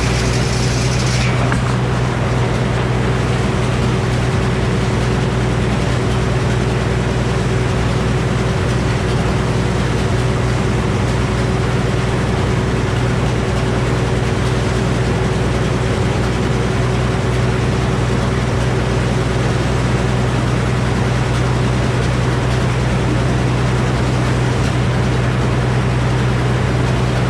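Old Frick sawmill running steadily: its power unit and drive make a loud, even machine noise with a strong low hum that holds without change.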